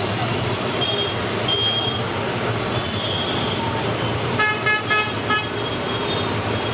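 Road traffic running steadily, with a vehicle horn sounding several quick honks about four and a half seconds in.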